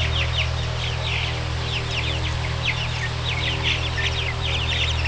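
A flock of three-week-old meat-bird chicks peeping continuously, a dense run of short falling peeps, over the steady hum of an electric fan.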